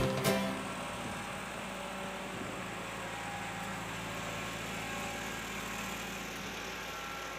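Atlas Copco portable air compressor's engine running steadily, an even hum with no change in speed.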